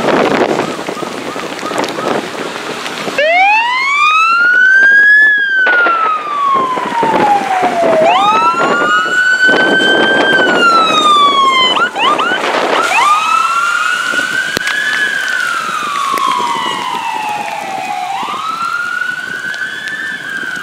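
Electronic emergency siren on a wail, starting about three seconds in and slowly rising and falling in pitch, with a short run of quick yelps about twelve seconds in. Before it starts there is an even rushing of rain and wind on the microphone.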